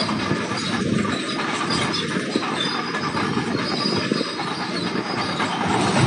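Caterpillar D8T crawler dozer travelling on gravel, its diesel engine running under a steady clatter of steel tracks with thin high squeals.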